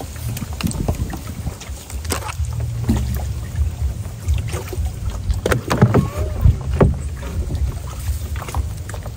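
Small boat on the water: scattered knocks and splashes against the hull over a steady low rumble.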